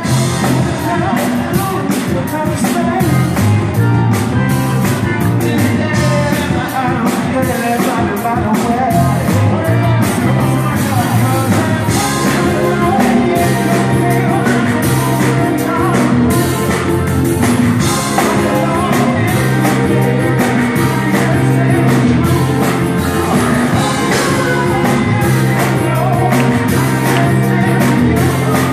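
Live band playing an upbeat song: a man singing into a handheld microphone over electric guitar and a drum kit with a steady beat.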